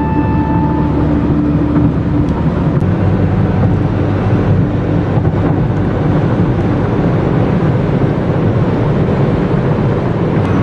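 Steady road and engine noise inside a car cruising at highway speed.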